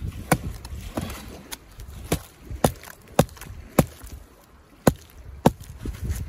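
A fixed-blade knife being batoned into a slab of dry, rotten punk wood: sharp wooden knocks, about nine of them at roughly two a second, with a short pause about four seconds in.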